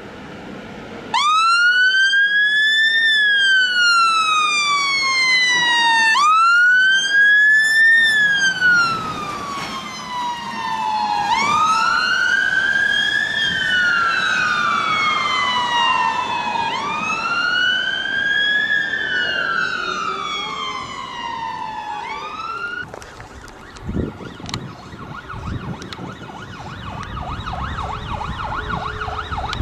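Fire engine siren on the wail setting: a loud, slow rise and fall that repeats about every five seconds. About 23 seconds in it cuts off and a fainter, distant siren wavers over traffic noise.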